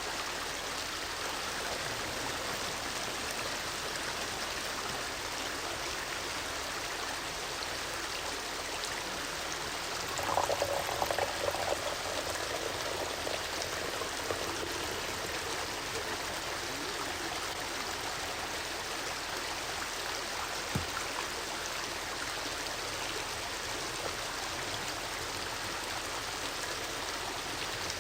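Steady rushing of flowing water, like a stream. A brief, brighter jumble of sound comes about ten seconds in, and a single knock about two thirds of the way through.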